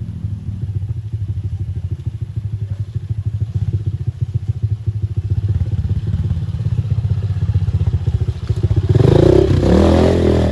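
Motorcycle engine running at low revs with a fast, even pulse. Near the end it gets louder and rougher.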